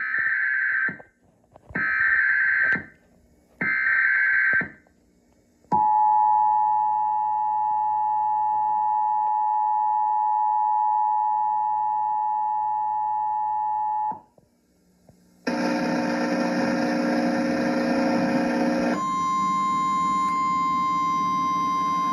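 Emergency Alert System tornado warning: three short, screechy SAME data bursts open the alert. The two-tone EAS attention signal follows, held for about eight seconds. After a brief gap there is a harsh burst of noise, then a single steady tone over hiss.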